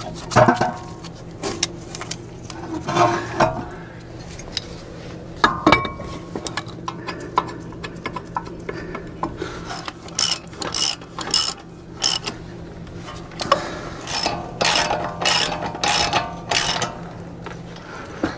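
Hand ratchet clicking in quick runs as the brake caliper bolts are run in, with a few separate metallic clinks of parts and tools before the runs.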